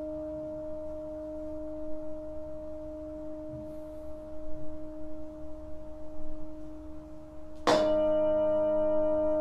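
Hand-held metal singing bowl ringing with a steady hum of two main tones, then struck again near the end, so that it rings out louder with many bright overtones.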